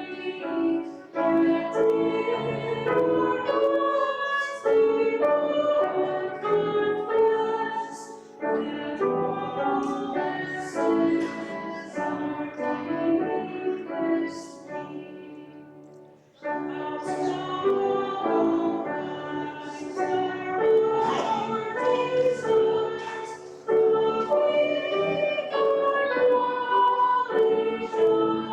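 Church music: singing with instrumental accompaniment, held notes in phrases, with a short break about 16 seconds in before the next phrase starts.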